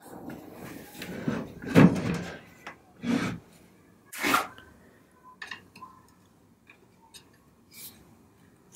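A few short wooden knocks and clunks from a wooden dining chair being handled, the loudest about two seconds in and again near four seconds, followed by quieter small taps and clicks.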